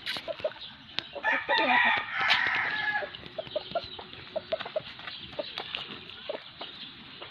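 Chickens clucking in short repeated notes, with a rooster crowing once, about two seconds long, starting about a second in.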